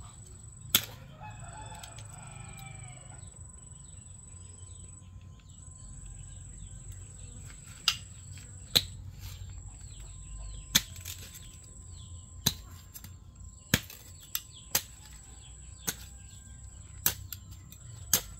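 A knife blade striking into hard, dry, clumpy soil, about a dozen sharp chops at uneven intervals, most of them in the second half, as the ground is dug up for earthworms. A rooster crows once near the start.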